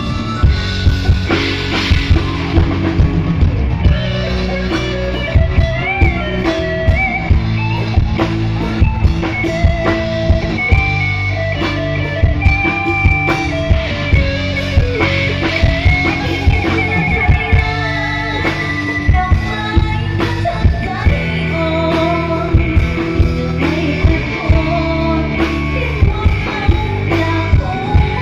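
A live band playing loud amplified rock-style music through a PA: a steady drum-kit beat, electric guitar and singing.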